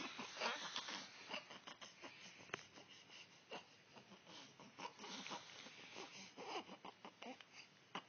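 Newborn baby making faint grunty vocal sounds and breathing noises, with a few soft clicks scattered through.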